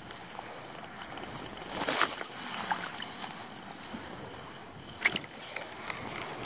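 Shallow sea water sloshing and lapping close by, with light wind on the microphone. There is a short louder swish about two seconds in and a few sharp clicks about five seconds in as the rod and spinning reel are handled.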